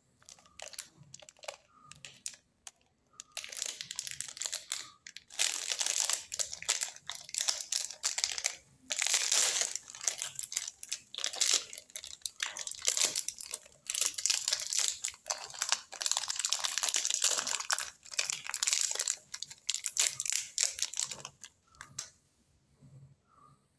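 A Fruit Pop lollipop's plastic wrapper being crinkled, torn open and peeled off by hand. The crinkling comes in long stretches with short pauses and stops near the end.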